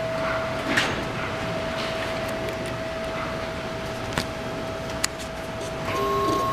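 A steady hum over even background noise, with a few sharp clicks. Near the end the level rises and a second, higher steady whine comes in.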